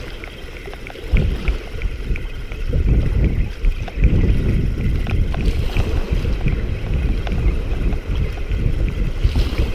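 Strong wind buffeting the microphone: a heavy low rumble that rises and falls in gusts, with faint scattered ticks over it.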